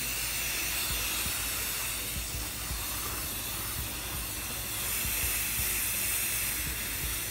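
Aerosol spray paint can spraying in one long, steady hiss.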